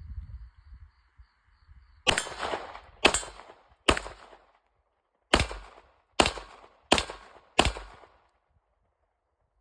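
Springfield 1911 pistol in 9mm fired seven times: three shots about a second apart, a short pause, then four quicker shots, each ringing out briefly after the crack.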